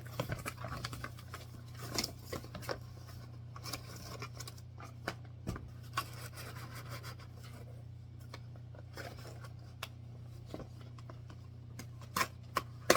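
Cardboard box and packaging being handled: scattered rustling, scraping and small knocks as a string trimmer is worked out of its box, with a few sharper knocks near the end, over a steady low hum.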